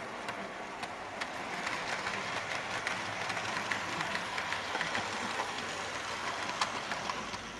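Model railway train running along the track: a steady rolling rumble and whir with frequent small irregular clicks of wheels over rail joints and points.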